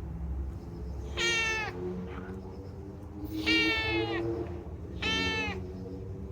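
Domestic cat meowing three times, each meow about half a second long and sliding slightly down in pitch, about two seconds apart.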